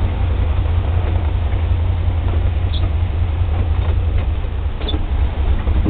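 Steady low engine and road rumble of a 1957 Chevrolet convertible heard from inside its cabin while driving, with a few faint ticks.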